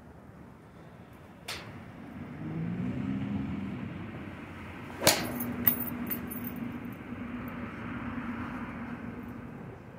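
A gap wedge strikes a golf ball off a driving-range mat: one sharp click about five seconds in, followed closely by a weaker click, with a fainter click earlier. A low steady hum starts with the shot and stops near the end.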